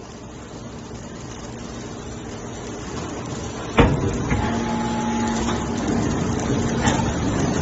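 Hydraulic scrap metal baler at work, its noise building steadily until a loud metal bang about halfway through. It then settles into a steady pitched drone, with two lighter knocks later on.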